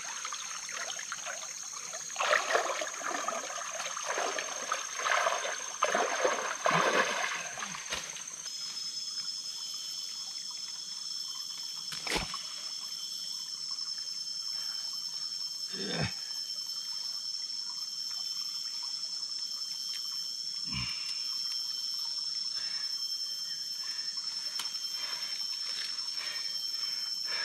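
River water splashing and trickling: irregular splashes for the first several seconds, then a steady trickle with a few single knocks.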